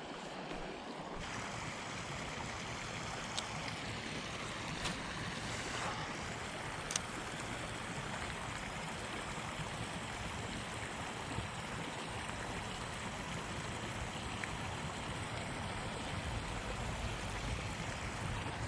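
Steady rushing outdoor ambience, a level hiss without any pitched sound, with a few faint ticks, the clearest about seven seconds in.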